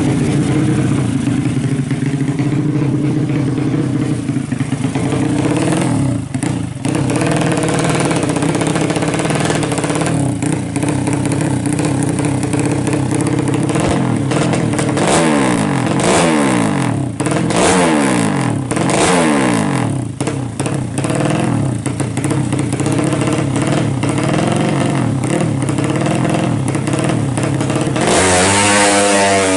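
A 200cc racing motorcycle engine running loudly, with several revs that fall away in pitch partway through and a sharp, louder rise in revs near the end.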